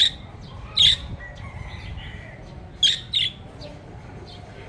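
Budgerigars calling: four short, sharp squawks, one at the start, one about a second in and two close together near three seconds, over quieter chatter.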